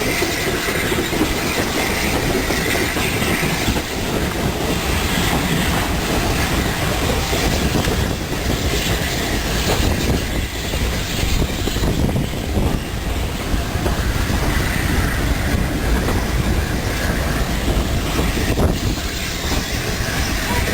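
Train rolling along the line, its wheels clattering steadily over the rail joints.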